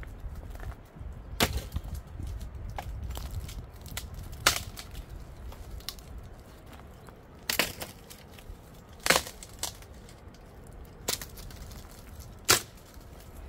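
Dry firewood being snapped and broken up for a cooking fire: about six sharp cracks at uneven intervals, one to three seconds apart.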